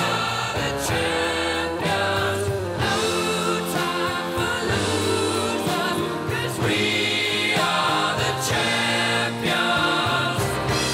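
Music with sung vocals over a steady bass line.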